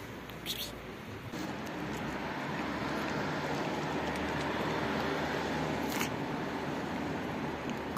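Road vehicle noise on the street, swelling over the first few seconds and then holding steady, with a single sharp click about six seconds in.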